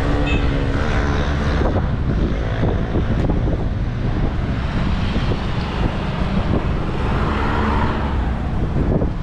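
City street traffic running steadily, with wind buffeting the microphone and adding a heavy low rumble.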